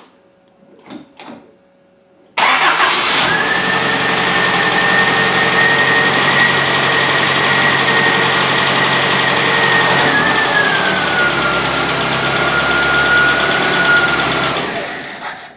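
Nissan Z24S four-cylinder petrol engine, freshly rebuilt with new rod bearings, catching about two seconds in and running at a fast idle with a steady high whine whose pitch drops slightly about ten seconds in, then fading near the end. The deep bearing knock is gone, but a lighter tick remains that the owner puts down to the top end, probably an exhaust valve, and it runs rough on part choke.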